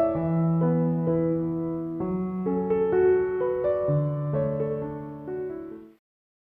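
Gentle solo piano background music playing slow sustained notes, fading out and ending about six seconds in.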